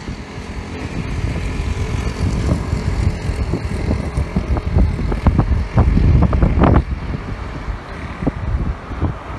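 Wind buffeting a phone's microphone, a rumbling that gusts hardest about six to seven seconds in, over light street traffic.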